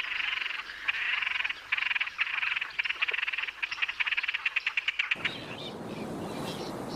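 Great crested grebes giving harsh, buzzy rattling calls during their courtship display, in a run of pulsed bursts that quicken into separate ticks. About five seconds in the calls stop abruptly and a steady hiss with faint chirps takes over.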